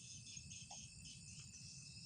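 Faint chorus of forest insects, a steady high-pitched chirring, over a low steady rumble.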